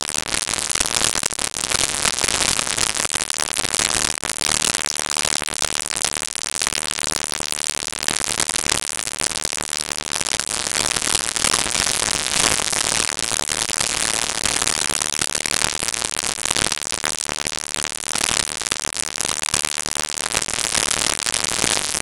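Loud electronic dance music from a festival sound system, picked up by an overloaded camera microphone so it comes out as a harsh, distorted wash of noise with little clear detail.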